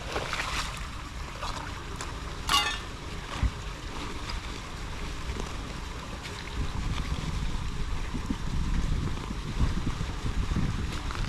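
Floodwater rushing and churning down a cleared street drain as a steady low rumble, with wind buffeting the microphone and one brief sharper sound about two and a half seconds in.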